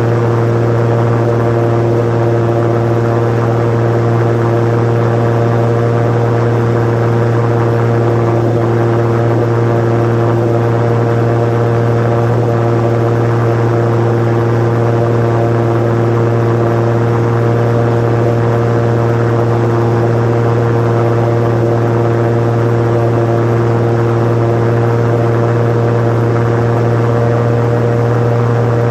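Osprey 2 amphibious seaplane's piston engine and propeller droning steadily at cruise power, heard from inside the cockpit, with a constant low hum and no change in pitch.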